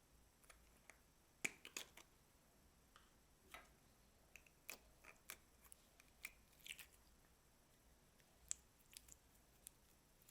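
Slime being worked by hand, giving soft, irregular clicks and crackles, the loudest about a second and a half in.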